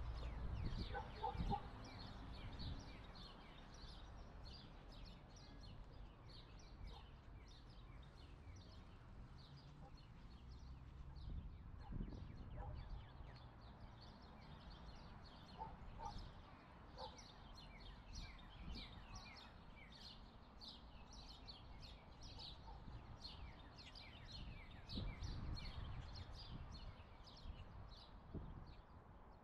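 Small birds chirping continuously in the surrounding trees, a dense run of short high chirps at a faint level. A few low knocks in the first couple of seconds.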